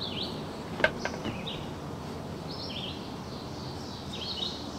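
Songbird singing in repeated phrases of short, falling chirps over steady outdoor background noise. A sharp knock comes about a second in, with a fainter one just after, as the longbow and its slip-on quiver are handled.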